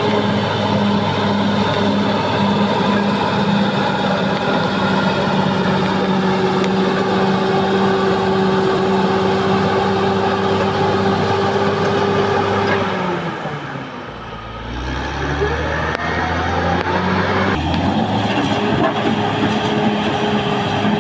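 Caterpillar D6R XL crawler bulldozer's diesel engine running hard at high revs, with a steady high whine. About two-thirds of the way through, the engine pitch drops sharply and the sound dips, with a deeper rumble, then the revs climb back up.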